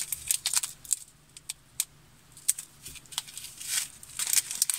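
Small plastic bags of Japanese seed beads being handled, with irregular crinkling and rustling in short clusters, densest near the start and again near the end.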